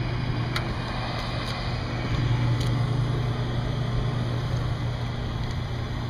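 Rooftop gas heating unit running through its start-up sequence, a steady low hum with a few faint clicks in the first few seconds.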